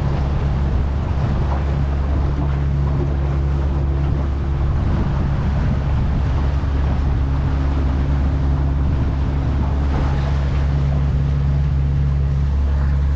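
Small boat's outboard motor running steadily under way, a constant low hum with wind and water noise over it.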